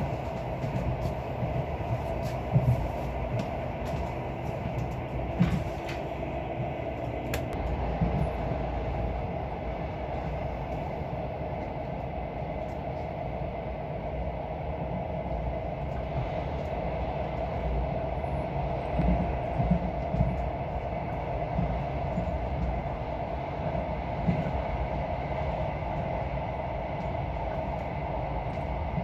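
Passenger train running steadily: a continuous rumble with a constant hum, and a few short sharp knocks now and then.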